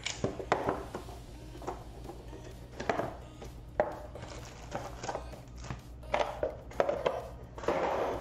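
Cardboard trading-card booster box being opened and handled by hand: a string of sharp cardboard taps and knocks, then wrapped packs rustling as they are pulled out near the end.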